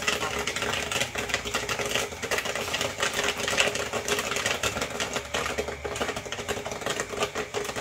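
Popcorn kernels popping rapidly in a pot over a gas burner, a dense run of sharp pops, over the steady hum of the pot's 12-volt stirrer motor.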